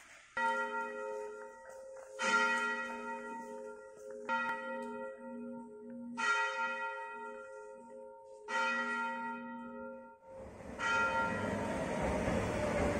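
A church bell tolling, six slow strokes about two seconds apart, each ringing on and dying away. Near the end a louder, steady rushing noise of a train comes in under the last stroke.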